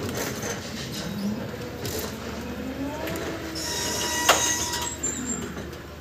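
Electric BT reach truck driving off along a warehouse aisle, its drive giving a whine that rises and falls in pitch, with a sharp click about four seconds in.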